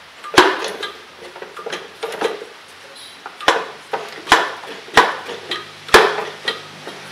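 Hand-pump power brake bleeder being pumped up by hand, its handle and plunger knocking sharply on the strokes: about five loud clacks with lighter knocks between, as the bleeder is brought up to pressure for a brake flush.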